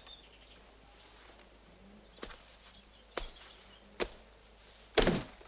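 Three soft footsteps on a floor, about a second apart, then a louder thump near the end.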